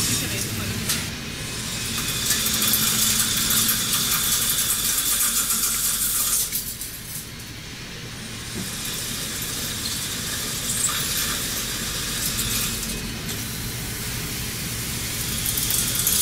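WFL Millturn CNC turning centre cutting a rotating metal shaft: a steady high hiss of cutting with a faint whine from the machine. It drops quieter about six and a half seconds in, then builds again, with coolant spraying over the work near the end.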